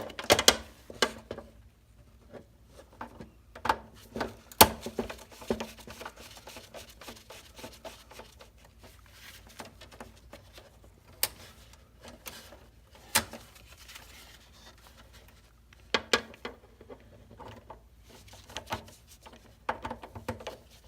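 Screwdriver and copper wires working at the neutral and ground bar of a breaker panel: irregular sharp clicks and scrapes as terminal screws are loosened and the wires are pushed in and snugged down.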